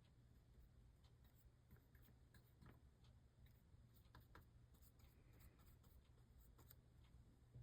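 Near silence: faint scattered ticks and crackles over a low steady hum, as flux sizzles under a soldering iron drawn along the lead came joints of a leaded-glass panel.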